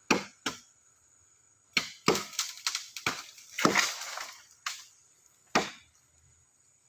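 Axe blows chopping into a tree's wood: about a dozen sharp, irregularly spaced strikes, with a longer, denser stretch of noise about halfway through.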